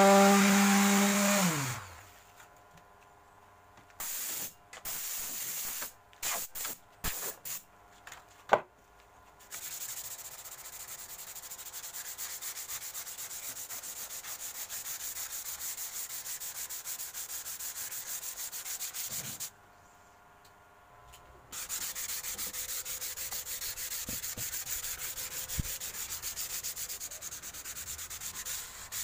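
An electric pad sander winds down and stops within the first two seconds, its pitch falling. Then plywood is sanded by hand: a few short rubbing strokes, a long stretch of steady rubbing, a pause of about two seconds, and steady rubbing again to the end.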